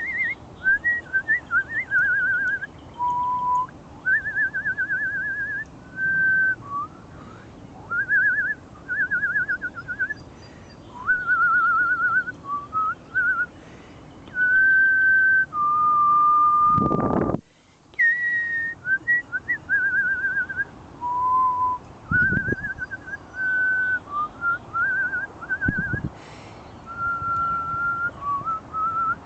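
A person whistling a long string of short bird-like phrases: warbling trills, short upward flicks and held notes, with brief pauses between them. A brief low rumble comes a little over halfway through.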